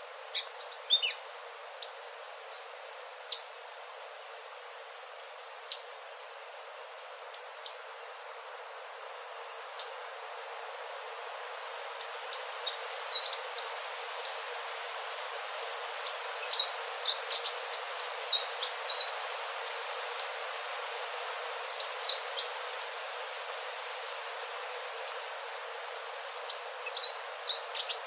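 Indigo flycatcher (sikatan ninon) singing: quick bursts of short, high chirping notes with pauses of a second or more between phrases, over a steady hiss.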